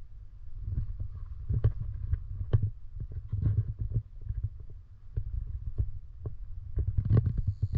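A low, uneven rumble with scattered knocks and clicks; a cluster of knocks near the end is the loudest.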